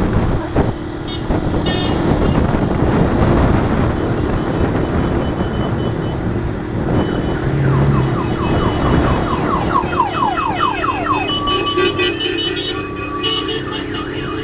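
Road noise from a long caravan of cars, with engine hum and wind on the move. From about halfway through, an electronic siren-type alarm repeats a rapid rising whoop and a horn sounds a held note.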